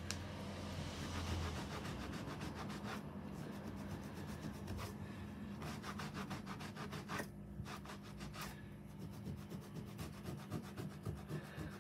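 A cloth rubbing back and forth on the floor in quick, repeated strokes, wiping up a spill of paint.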